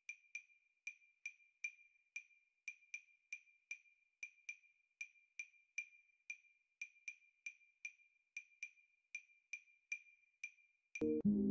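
Ticking clock sound effect: evenly spaced sharp ticks, about three a second, over dead silence, with music beginning near the end.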